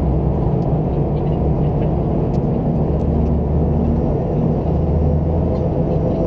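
Steady low rumble inside the cabin of a Boeing 717-200 in flight, from its two rear-mounted Rolls-Royce BR715 turbofan engines and the airflow.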